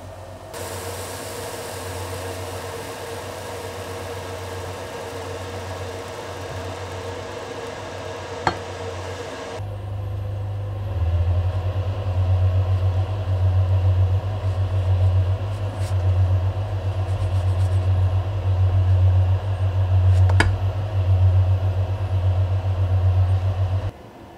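Pancakes cooking in a frying pan on an induction hob. A soft sizzle starts just after the batter is ladled in and lasts about nine seconds. A loud low hum runs under it and grows stronger and pulsing after about ten seconds, and a spatula lightly taps the pan twice.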